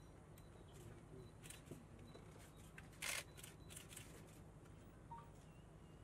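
Faint camera shutters clicking irregularly, many short clicks scattered through, the loudest about three seconds in, over a low steady hum.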